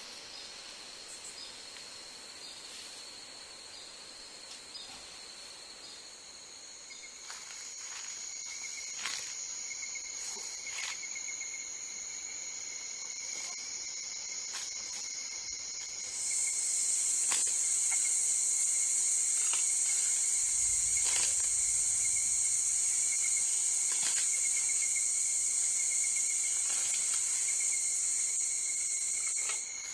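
Chorus of forest insects: several steady high-pitched trills go on together. A louder, higher trill joins about halfway through and cuts off suddenly near the end. A few faint clicks are scattered through it.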